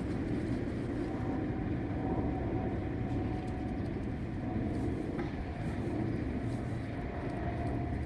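Steady low rumble of outdoor background noise, even in level, with a faint steady tone entering about a second and a half in.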